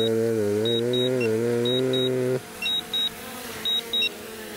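DJI Mini 4 Pro's propellers and motors humming steadily as it descends to land, wavering slightly in pitch, then dropping sharply to a faint hum about two and a half seconds in. Pairs of short high beeps repeat about once a second throughout as a landing alert.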